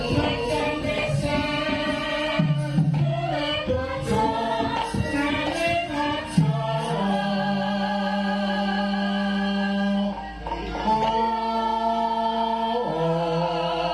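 Javanese gamelan music with sinden singing. Drum strokes and moving vocal lines come first; after about six seconds the voices settle into long held notes, with a short break about ten seconds in.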